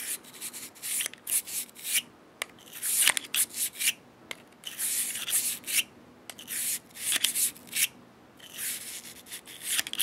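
Brass bristle bore brush, wet with cleaner, on a cleaning rod, scrubbing in and out through the barrel of a Smith & Wesson 360SC .357 Magnum revolver: a series of irregular scratchy strokes with a few small clicks.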